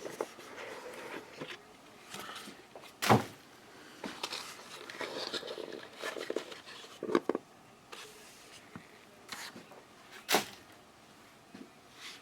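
Soft rustling and handling of a trading card box and its packs, with a few sharp knocks or clicks, the loudest about three seconds in and again near ten seconds.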